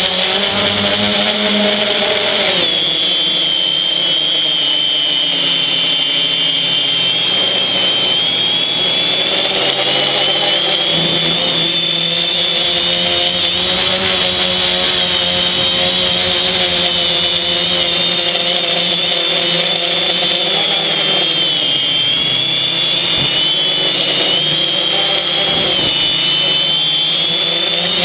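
FPV quadcopter's electric motors and propellers whining, recorded from the camera on board. A high tone and a set of lower tones waver up and down together as the throttle changes during agile flying.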